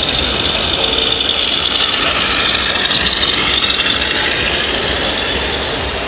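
Radio-controlled truck's sound module playing a steady diesel engine note as the model semi pulls its loaded trailer. A constant hiss-like din of the exhibition hall runs underneath.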